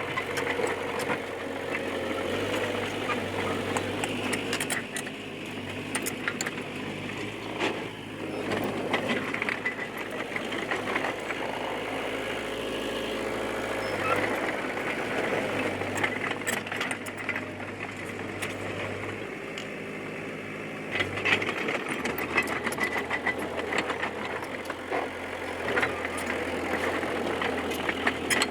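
D20P bulldozer's diesel engine running under work, its note shifting several times, with frequent metallic clanks and rattles over it.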